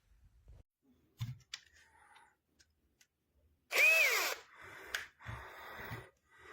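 Einhell 18V brushless cordless drill given a short pull of the trigger about four seconds in: its motor whine rises quickly and then falls away as it spins up and winds down. Quieter scraping noise and a sharp click follow.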